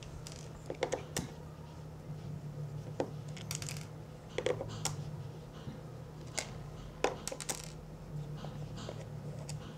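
Scattered light clicks and taps as small screws are taken out of a black plastic relay box lid and set down on a wooden table, with small handling rustles over a steady low hum.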